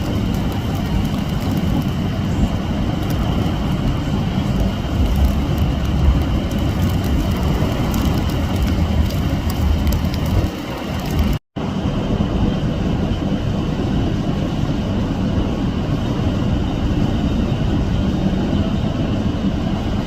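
Strong wind buffeting the microphone in a storm, a steady rushing roar with heavy low rumble, cut off twice by edits.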